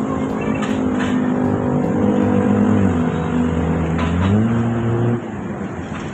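A motor vehicle's engine accelerating, its pitch climbing in steps as it pulls away, over steady traffic noise; it cuts off abruptly about five seconds in.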